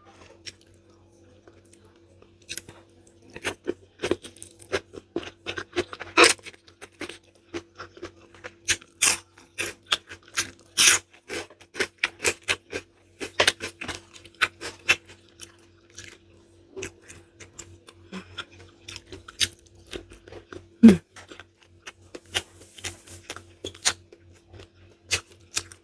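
Close-miked chewing of a mouthful of food: irregular wet clicks and smacks of the mouth, several a second, thinning out for a few seconds past the middle.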